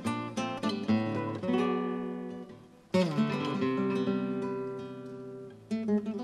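Acoustic guitars playing a fusion arrangement of a Gypsy song: a quick run of plucked notes, then a strummed chord about three seconds in, left to ring and fade before fresh plucked notes near the end.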